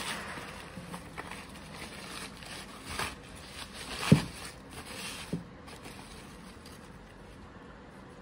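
Crumpled newspaper wrapping rustling and crackling as it is torn off and pulled away by hand, with a sharp thump about four seconds in; the rustling grows quieter in the last couple of seconds.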